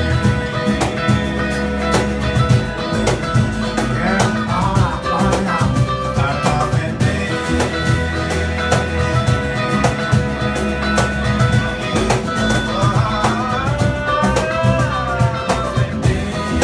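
A small band playing live: acoustic guitar, electric bass, electric guitar and drums, with a steady beat and a wavering melody line twice.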